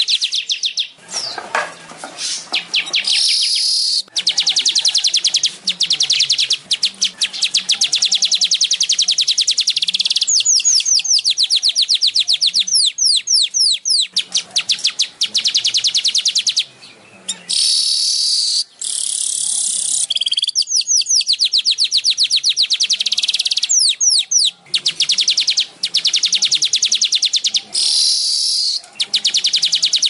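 Weaver bird (manyar, Ploceus) singing a long, very fast chattering trill of high notes in runs broken by short pauses, with a few quick sweeping notes mixed in.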